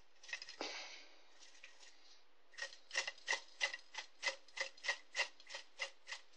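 Metal tobacco tin worked against a ceramic dish as dried-out tobacco is shaken out of it: a faint rustle of tobacco at first, then from about two and a half seconds in a steady run of short rubbing strokes, about three a second, each with a slight metallic ring.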